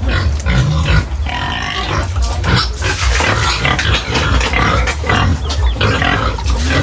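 Pigs squealing and grunting, loud and continuous, many overlapping calls at once.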